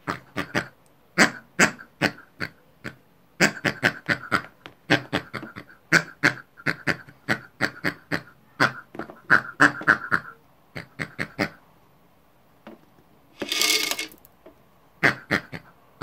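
People imitating pigs with rapid short grunts and snorts, about three a second in clusters, which stop about three-quarters of the way through. A brief noisy burst follows about a second later.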